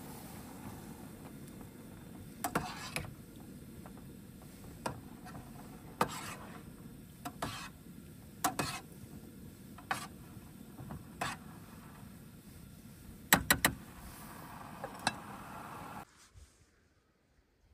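Scattered short clicks and knocks of things being handled and set down, a quick cluster of three about thirteen seconds in being the loudest, over a steady low hum. The sound drops to near silence about sixteen seconds in.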